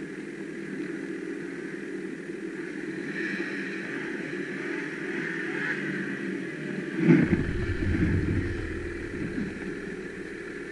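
Snowmobile engine idling steadily; about seven seconds in, a sudden louder deep rumble as the sled is throttled up, easing off over the next two seconds.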